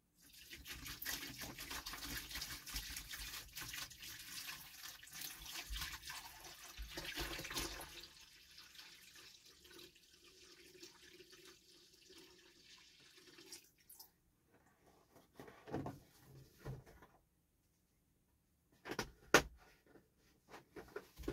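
Water poured from a large plastic bottle into a plastic bucket, splashing steadily for about eight seconds, then running more quietly as the bottle empties. A few sharp knocks follow near the end.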